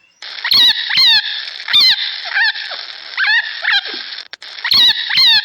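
An animal's short, high, squeaky calls, each bending quickly in pitch, repeated over and over at irregular intervals of about half a second to a second, over a steady hiss.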